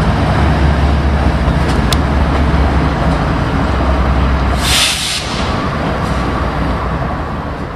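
Diesel-electric freight locomotives passing close by, with a heavy, steady engine rumble. About two-thirds of the way through comes a brief loud hiss, after which the rumble gives way to a lighter train noise that begins to fade.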